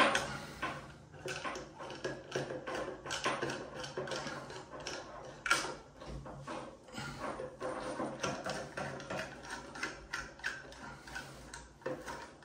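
Irregular metallic clicks and scrapes as a basin mixer tap's fixing parts are worked and tightened from below, with the tap body shifting against the basin, over a low steady hum.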